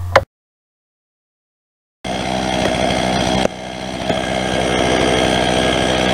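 Stihl MS 391 two-stroke chainsaw running steadily after about two seconds of silence. Its level drops sharply about a second and a half after it starts, then builds back up.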